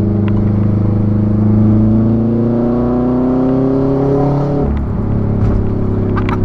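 Exhaust of a 2006 Subaru WRX's turbocharged flat-four, straight-piped with the muffler removed, rising steadily in pitch as the car accelerates. About four and a half seconds in the pitch drops sharply, and the engine runs on steadily with a few brief crackles.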